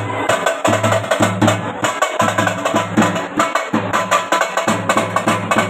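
A drum beaten in a fast, steady rhythm, with heavy low beats and sharp strokes on top.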